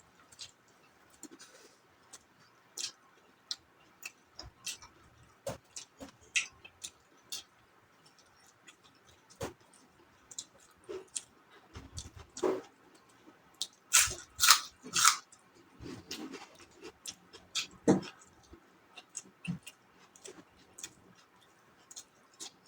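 A person eating close to the microphone: chewing, with scattered short wet clicks and lip smacks. The sounds are louder in a cluster about two-thirds of the way through.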